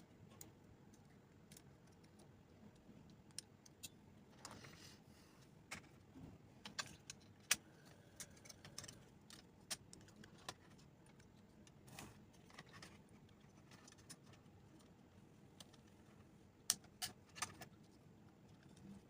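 Faint, scattered clicks and taps of small metal and plastic parts handled by hand while an SSD is fitted into a mini PC's drive bay, with a brief rustle about four and a half seconds in.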